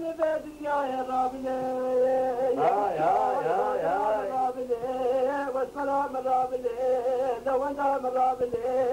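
A male dengbêj voice singing a Kurdish folk song unaccompanied: long held notes, with a fast wavering, ornamented run a few seconds in.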